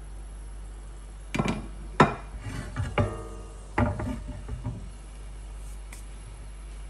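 A few irregular knocks and clatters of cookware being handled on a gas hob, between about one and a half and five seconds in. One of them, about three seconds in, is a metallic clank that rings briefly.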